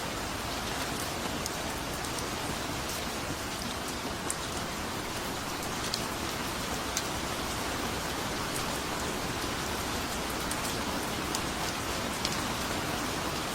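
Steady rain falling, an even hiss with scattered sharp drop ticks heard through it.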